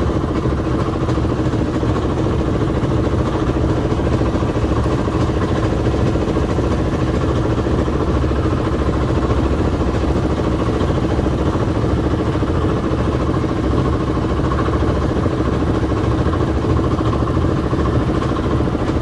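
Engine-driven air compressor for hookah diving running steadily at an even pace, feeding air down the hose to the diver's mask.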